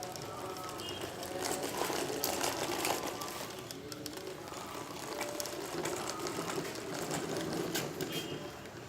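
Small electric motor of a homemade model combine harvester running, a steady mechanical whirr with light rattling and clicks.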